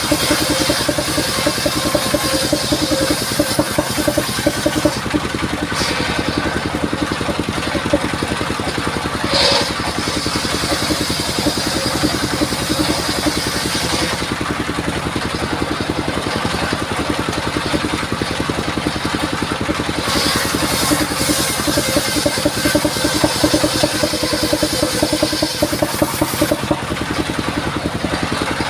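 Engine of a mobile circular-saw mill running steadily, driving the saw blade while it cuts sengon (albasia) wood, with a higher hissing edge that swells and fades over stretches of several seconds.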